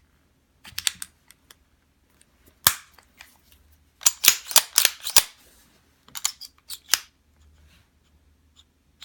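CZ P-01 pistol being reassembled by hand: a series of sharp metallic clicks and clacks as its steel parts are fitted back together, with the densest run of clicks about four to five seconds in.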